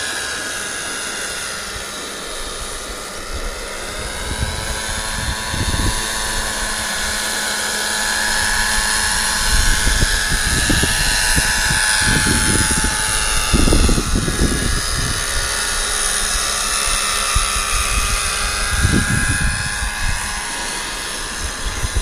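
Radio-controlled scale Bell 47G model helicopter in flight, its nitro engine and rotors giving a steady high whine whose pitch sways up and down as it manoeuvres. Low rumbling buffets come and go, strongest as it passes close about halfway through.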